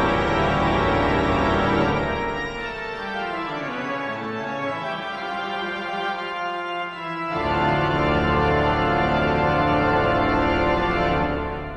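Background organ music of loud, held chords. It drops quieter for a few seconds with a descending line, comes back in full about seven seconds in, and fades out at the end.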